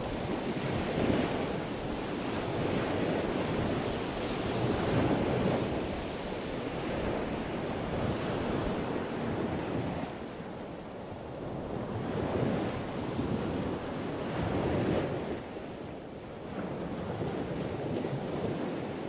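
Hands rolling and shaping soft bread dough into balls on a floured wooden board: a rushing, scuffing friction noise that swells and fades with each stroke of the hands, every couple of seconds.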